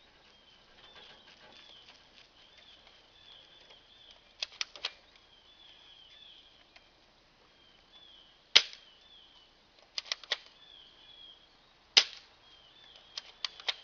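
Spring-powered airsoft M249 SAW replica being test-fired: two sharp snaps of the shots, each preceded a few seconds earlier by a quick run of about three clicks as the spring is cocked.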